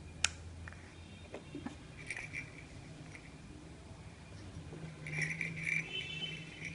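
One sharp click a moment after the start, then a few faint scattered clicks and light rattles over a low steady room hum.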